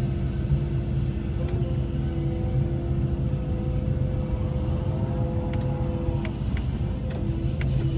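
Cat 312E L hydraulic excavator's diesel engine running under load with a steady hydraulic whine as the boom lifts and swings a full ditching bucket, heard from inside the cab. A few light clicks come near the end.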